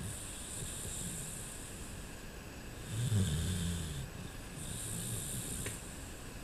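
A sleeping dog snoring, in slow breaths: one snore about three seconds in and a fainter one about two seconds later, each with an airy hiss.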